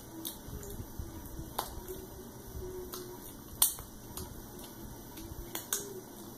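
Mukbang eating sounds: jjajangmyeon noodles slurped off wooden chopsticks and chewed, with scattered sharp clicks, the loudest about three and a half seconds in.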